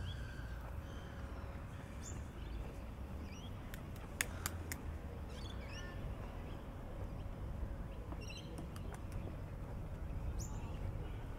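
Birds chirping now and then over a steady low outdoor rumble, with a few sharp clicks about four seconds in.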